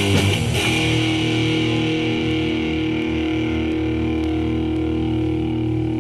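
Indie pop electric guitar band music: strummed guitar stops about half a second in, leaving one chord ringing and held.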